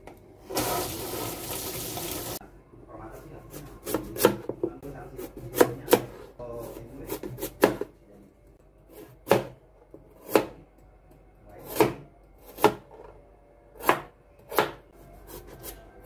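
Tap water runs briefly at the sink for about two seconds near the start. Then a chef's knife slices a carrot on a plastic cutting board: single sharp chops about one a second, a dozen in all.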